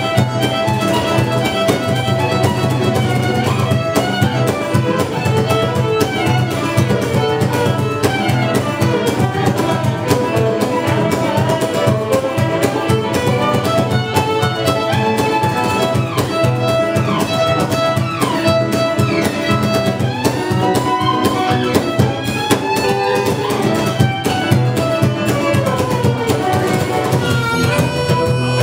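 A blues band playing live, with the fiddle taking the lead in sliding, bowed lines over finger-picked acoustic guitar and steady hand percussion.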